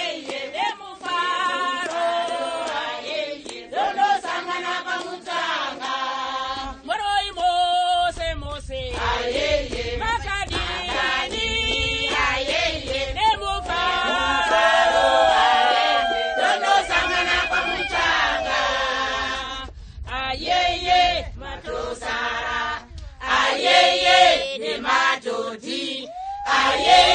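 A group of villagers, mostly women, singing together in chorus, with a low rumble under the singing from about eight seconds in.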